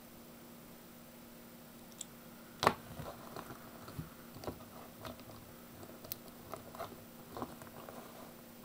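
Handling noises from the plastic figure and its packaging: a sharp knock about two and a half seconds in, then a string of small irregular clicks and crinkles, over a faint steady hiss.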